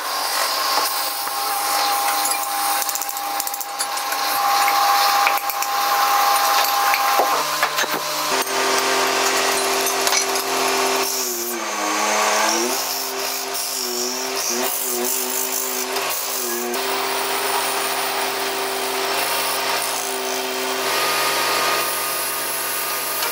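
Motor-driven metal lathe spinning a cast brass bowl while a hand-held cutting tool scrapes its surface: a steady machine hum with a hiss of cutting over it. The hum changes pitch about eight seconds in, and about halfway through it dips and wavers for a couple of seconds as the tool bites, then runs steady again.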